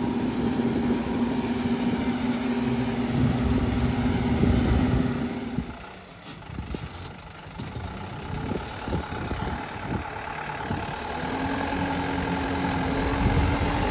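A Guard World WD754 tractor's 75 horsepower four-cylinder turbocharged, intercooled diesel engine runs steadily while it drives a 90-cutter rotavator through the PTO. About halfway through the sound drops and turns fainter and rougher. Near the end the engine note rises again as the tractor comes closer.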